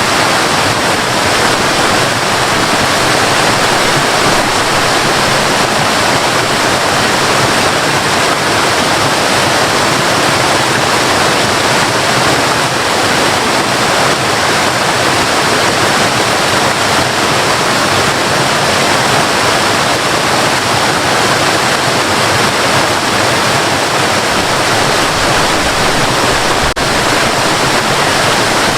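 Waterfall: a steady, dense rush of falling water crashing without pause.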